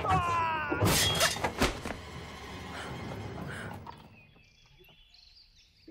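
Martial-arts fight sound effects: a short falling shout, then two sharp hits a little under a second apart, over music that fades away to near silence for the last two seconds.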